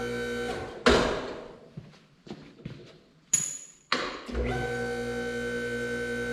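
A machine's electric motor hums steadily, stops about a second in, and starts again about four seconds in. In the gap there are a few sharp metallic knocks and a brief hiss.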